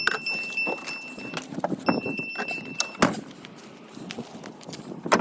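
Ignition keys jangling and clicking in a Ford OBS truck's ignition, over a steady high warning chime that sounds twice in the first three seconds. The engine does not crank, the no-crank fault that the owner puts down to a failed starter solenoid.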